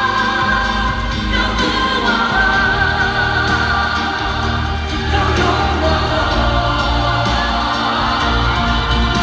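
Live pop music with sustained, choir-like singing over a steady bass line.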